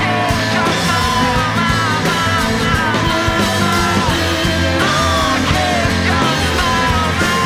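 Live band music: a man and a woman singing loudly together over strummed acoustic guitar and cello.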